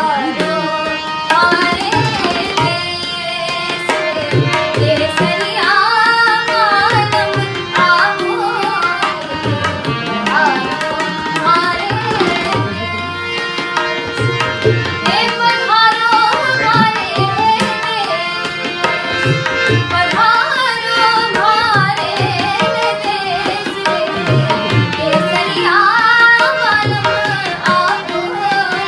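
A girl singing a melody, accompanied by a harmonium and a steady pattern of tabla strokes.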